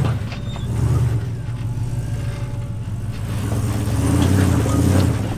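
Caged Jeep rock crawler's engine revving in short throttle bumps as it climbs a rock ledge, swelling about a second in and again in a longer surge near the end.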